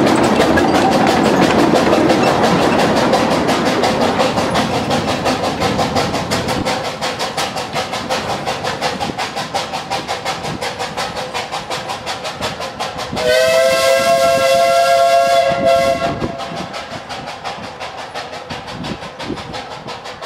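Quarry Hunslet 0-4-0 tank steam locomotive chuffing away with its train in quick, even beats that grow fainter as it draws off. Its steam whistle blows for about three seconds about two-thirds of the way through.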